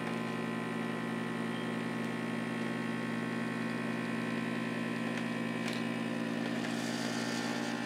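Professional-grade high-capacity vacuum sealer's pump running with a steady, even hum, drawing the air out of a large bag of smoked chicken before the seal is made.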